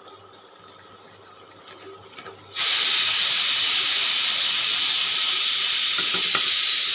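Pressure cooker releasing steam through its whistle weight: a loud, steady hiss that starts suddenly about two and a half seconds in and keeps going. This is the cooker's whistle, the sign that it has reached pressure.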